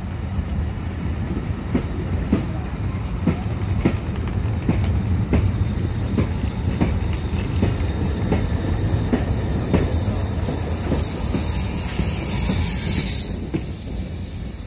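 Steam locomotive and a rake of goods vans passing below: a steady rumble with wheels clicking over rail joints about twice a second. A loud hiss comes near the end as the locomotive goes under.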